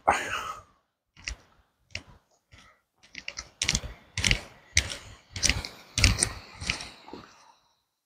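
Footsteps on a dirt path, a few scattered steps and then a steady walk of about two steps a second that stops shortly before the end.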